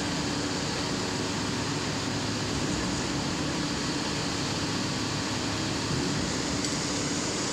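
Steady mechanical drone of construction-site machinery, a constant low hum under an even rushing noise, with no distinct knocks or changes.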